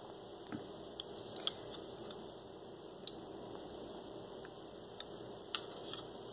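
Faint steady room hiss with about nine small, sharp handling clicks and taps scattered through it, from test tubes being held up and moved.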